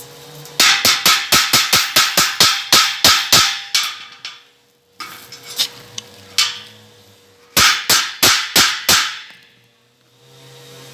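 Hammer striking steel in quick runs of sharp, ringing blows, about four or five a second: a run of about a dozen, a few scattered blows, then a shorter run of about seven.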